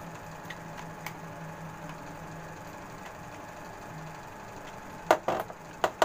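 Handling noise at a wall-mounted breaker and contactor panel, with a faint steady hum throughout. A couple of small clicks come early, then a few sharp clicks and knocks near the end.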